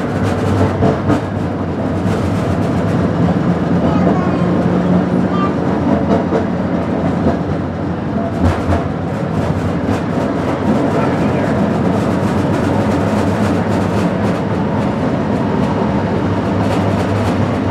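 Restored vintage streetcar running along its track, heard from inside the car: a steady rumble of wheels on rails with a low motor hum. There is one sharp knock about eight and a half seconds in.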